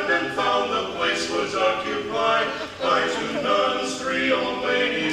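Barbershop-style a cappella singing: several voices in close harmony moving through short held chords.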